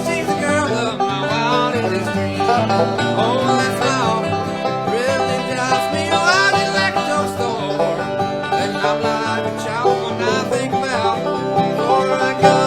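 Live acoustic bluegrass music: banjo and guitar playing together in a steady, continuous stretch of a song.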